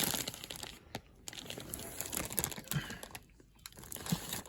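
Toy box packaging rustling and crinkling as it is handled, with small clicks and taps, pausing briefly twice.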